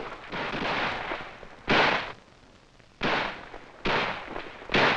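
Gunfire: a rush of noise through the first second or so, then four sharp, loud shots at uneven gaps of about a second, each trailing off.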